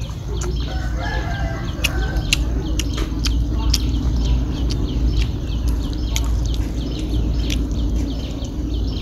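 Crisp eating sounds, sharp crunching clicks from chewing papaya salad and fresh greens, over a steady low rumble. Birds chirp over it in a quick repeating series, with a longer pitched call from about one to three seconds in.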